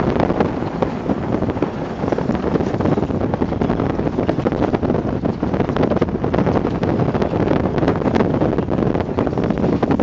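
Steady wind buffeting the phone's microphone: a loud, continuous rumbling rush with small crackles throughout.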